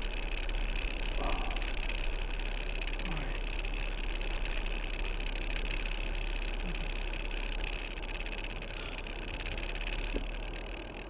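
Steady low rumble of a 2018 Jeep Wrangler JL Unlimited Rubicon's running engine, heard from inside the cabin as the Jeep slowly slides on snow that the driver cannot stop.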